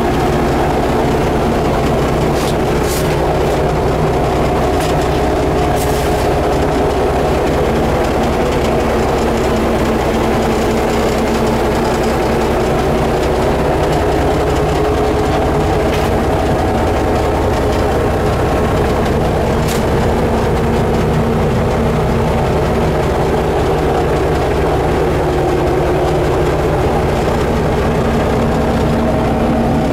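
1977 Caterpillar D8K crawler dozer's turbocharged six-cylinder Cat D342 diesel running steadily, heard from inside the cab. A few brief clicks or rattles sound over it.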